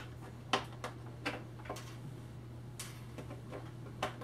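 Body pins being pulled from an RC monster truck's body posts: several small, sharp clicks at irregular intervals, over a low steady hum.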